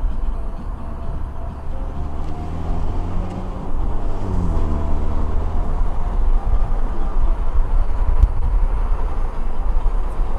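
A car driving along a winding uphill road: a heavy, steady low rumble of engine and road noise. About four seconds in, a pitched engine note glides up and down, then fades back into the rumble.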